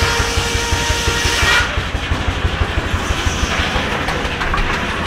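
1927 Rumely Oil Pull Model E tractor engine running belted to a stationary sawmill, with a steady, rapid exhaust beat. A higher ringing tone and hiss over it stop about a second and a half in.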